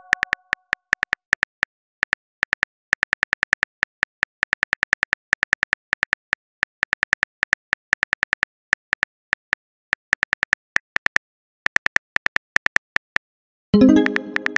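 Rapid, uneven tapping of a phone keyboard's click sound as a message is typed, followed near the end by a short pitched message-alert chime as the new message arrives.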